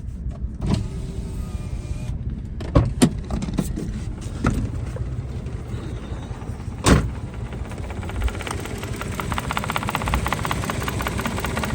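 Three-cylinder engine of a 2014 Mitsubishi Mirage idling roughly on only two cylinders: the middle ignition coil is not firing, so the engine misfires and shakes. Several sharp knocks and clicks sound over it, the loudest about seven seconds in, and a rapid even ticking from the engine grows plainer in the last few seconds.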